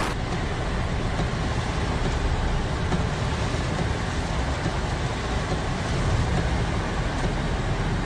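Storm wind rushing steadily and buffeting the microphone with a deep, fluttering rumble.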